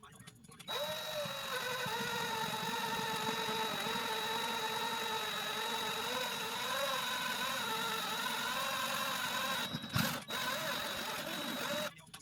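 A small motor running steadily with a slightly wavering whine. It starts abruptly, there is a sharp click about ten seconds in, and it cuts off near the end.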